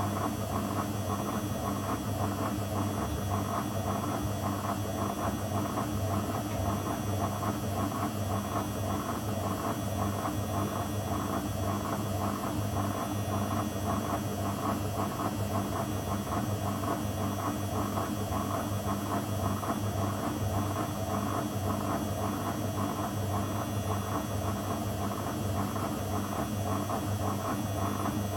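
Zanussi FL984CN washing machine running a programme, its motor giving a steady, even hum with no break or change.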